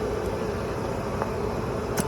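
A steady mechanical hum with a few faint, light clicks.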